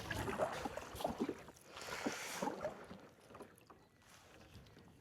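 Kayak paddle strokes swishing and splashing through the water, with a few light knocks, fading to near quiet after about three seconds.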